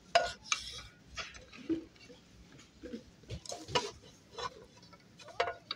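Forged-aluminium non-stick frying pans knocking and clinking against each other and the wire display bin as they are handled, in a scattering of short, irregular knocks.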